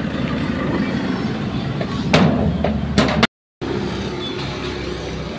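Yamaha 125 scooter's single-cylinder engine idling steadily, with two sharp clicks about two and three seconds in. The sound cuts out completely for about a third of a second just after three seconds in.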